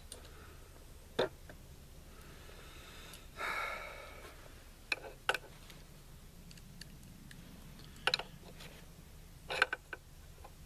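Sharp metal clicks and knocks, a handful spread over several seconds, with a short rasping scrape about three and a half seconds in. These are the sounds of parts and tools being handled while a barrel nut is screwed onto an AR-style rifle upper receiver.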